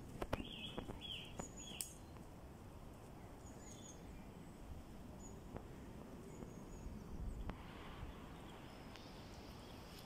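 Woodland ambience: small birds chirping in short calls scattered through, over a steady low background noise. There are a few soft steps and clicks in the first two seconds.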